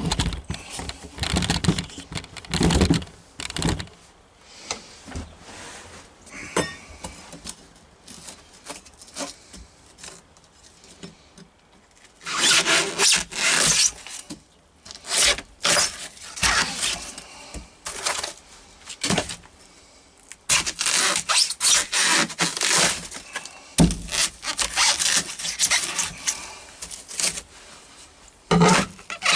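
Hand tools scraping and rasping at a boat's floor in irregular strokes. Bursts of work come early on, and again from about 12 s to near the end, with a quieter stretch of scattered small knocks in between.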